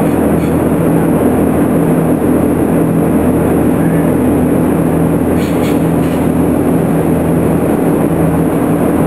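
Vacuum lift assist's vacuum pump running: a loud, steady hum with several fixed tones over a constant rush of air. A few faint clicks come about five and a half seconds in.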